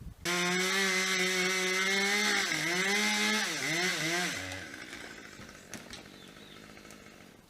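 Chainsaw running at full throttle, starting abruptly. About two seconds in its pitch sags and recovers a few times, then it drops to a low idle about four seconds in and fades.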